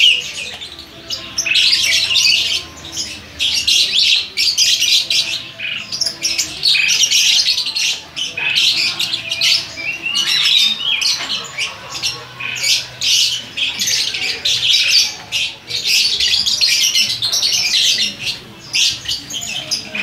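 Many caged lovebirds and other cage birds calling at once: a dense, unbroken, high-pitched chatter of short shrill calls.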